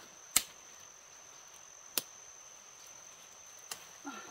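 Steady high-pitched insect chirring, with two sharp cracks, about half a second in and two seconds in, of twigs and dry stems snapping as someone climbs through dense undergrowth.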